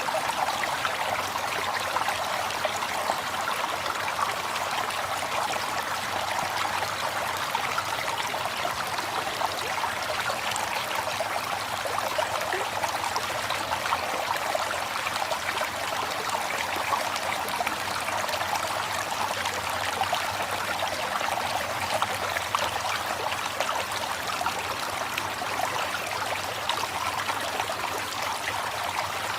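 River water flowing: a steady rush with fine splashing running through it.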